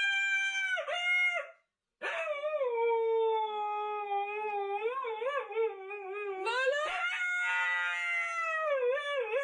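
A dog howling: a short howl, then two long, wavering howls, the last one pitched higher.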